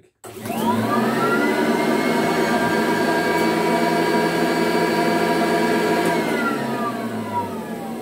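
A 1970s McDonald Electric 250 upright vacuum cleaner is switched on, and its motor whine rises in pitch over about a second as it gathers speed, then runs steadily. About six seconds in it is switched off and winds down, the whine falling steadily in pitch.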